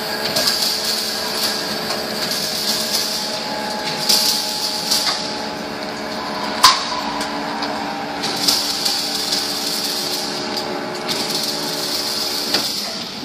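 Vacuum membrane press running during a forming cycle: a steady machine hum, with high hiss that comes and goes several times and a single sharp click about six and a half seconds in.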